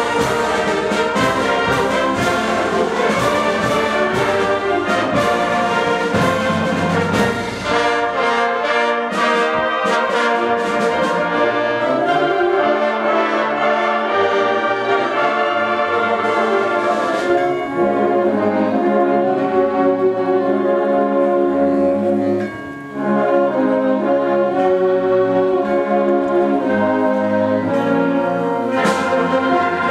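Youth concert band playing, clarinets and brass (trumpets) sounding together in full held chords. Sharp percussive hits punctuate the first several seconds, and the music briefly drops away about 23 seconds in.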